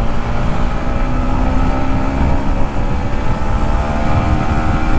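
Yamaha MT-15's 155 cc single-cylinder engine running at steady riding revs, its pitch rising slightly about two seconds in, with heavy wind rumble on the microphone.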